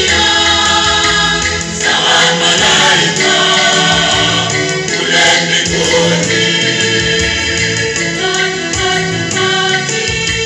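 A choir singing in harmony, several voices holding long notes together.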